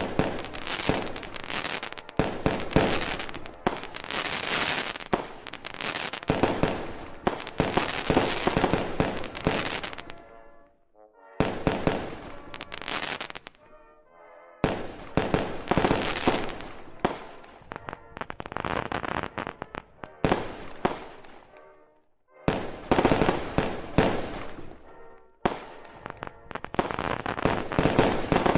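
Aerial fireworks shells bursting in rapid volleys of sharp cracks and booms. The barrage drops out briefly about eleven seconds in, again about fourteen seconds in, and once more a little after twenty seconds.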